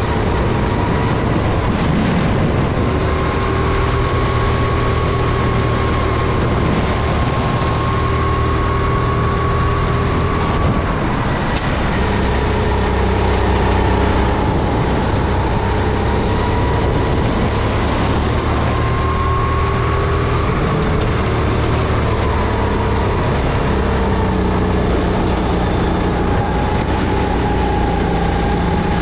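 Single-cylinder Honda GX270 four-stroke engine of a SODI RT10 kart running at racing speed. Its note climbs slowly and drops back sharply about eleven and again about twenty-one seconds in, as the kart accelerates and slows through the lap.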